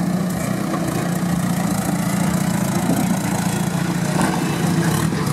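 Off-road trial buggy's engine running at fairly steady, low revs as the 4x4 crawls over rocks.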